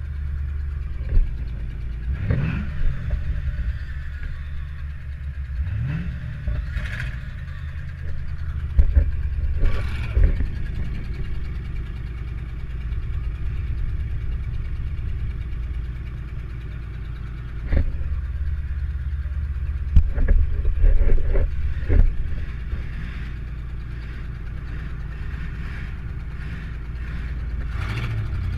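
Demolition derby car engine running with a heavy low rumble, heard from the driver's seat. It revs up in two rising surges in the first several seconds. Sharp bangs break in several times, clustered about a third of the way in, past the middle, and again near the end.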